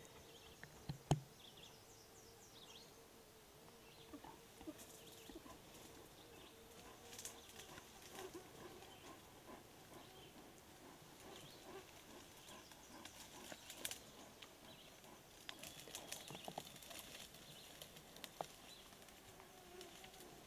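Faint, scattered rustling and crackling of brush and dry twigs in forest undergrowth, with one sharp knock about a second in.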